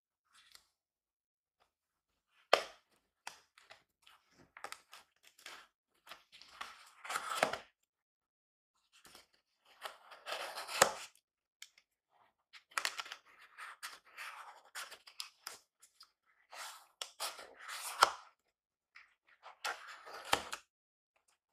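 Cardboard shipping box being torn open by hand. Bursts of ripping and crackling cardboard are broken by short quiet gaps and several sharp snaps.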